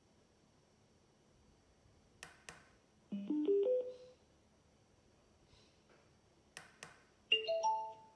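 Mode button clicks on an Astronord CD player, twice a pair of clicks, each followed by the player's short rising electronic chime of a few notes as it switches input mode, first to Bluetooth and then to CD.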